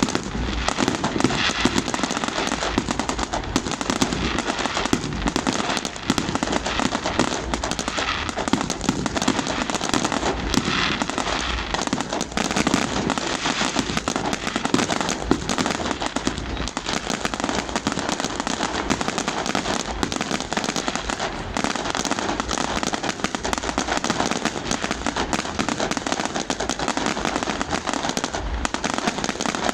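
New Year fireworks display with a dense, continuous run of overlapping bangs and crackles that never lets up.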